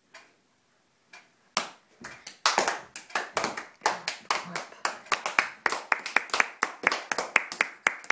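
A few people clapping by hand: a couple of scattered claps, then steady applause from about one and a half seconds in.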